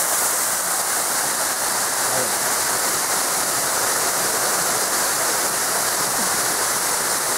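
Waterfall: a steady, unbroken rush and hiss of water falling onto rock.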